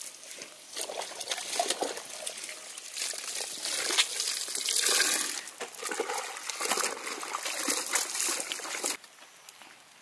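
Water splashing and trickling as wet clothes are lifted, wrung and dropped into a plastic basin, in irregular uneven splashes that stop abruptly near the end.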